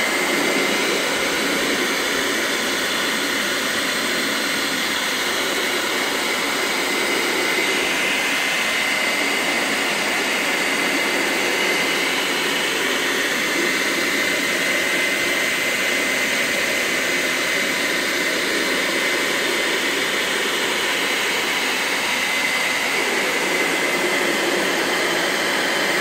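Handheld hair dryer running steadily on its hot, high setting, blowing close against a refrigerator's control panel: an even rush of air with a thin steady whine over it.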